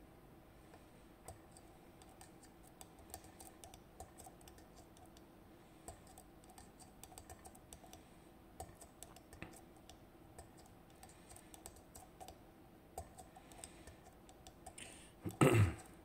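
Faint, irregular small clicks and scratches of a homemade bicycle-spoke pick working the five tapered pins of an IZIS pin-tumbler lock under tension, pins being pushed up again and again.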